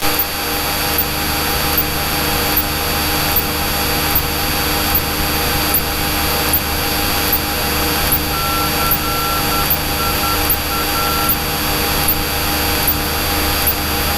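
Cessna light aircraft's piston engine and propeller droning steadily in flight, with a steady high whine over it. A short run of beeps sounds about halfway through.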